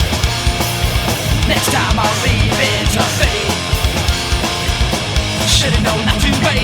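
Punk rock band playing: loud electric guitars, bass and fast, steady drums, with no clear vocal line.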